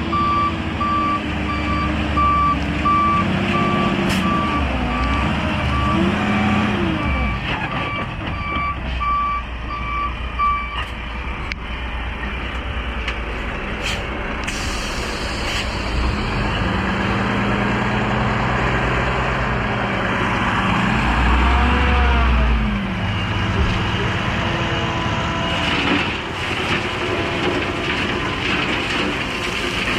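Dump truck backing up, its reversing alarm beeping steadily over the running diesel engine. The beeping stops about ten seconds in, and the engine keeps running, revving up and down as the truck gets into position to dump its load of crushed rock.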